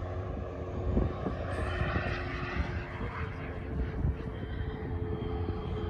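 Model jet's Xicoy turbine engine running in flight, a steady rushing noise that is fuller about two to three seconds in, over a low rumble of wind on the microphone.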